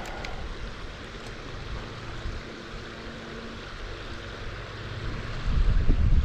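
River water rushing steadily over a shallow gravel run, with wind buffeting the microphone that grows much louder near the end.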